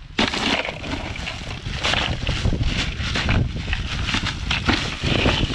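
Ice cubes pouring from a plastic bag into a plastic cooler of fish, a dense rattling clatter that starts suddenly just after the start and keeps on. Wind rumbles on the microphone underneath.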